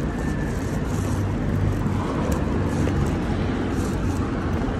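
Steady street traffic noise with a low engine hum.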